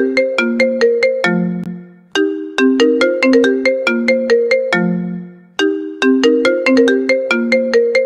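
The iPhone ringtone melody performed a cappella: a phrase of quick, sharply struck, ringing notes over lower held notes, repeating as a loop. The phrase starts over about every three and a half seconds.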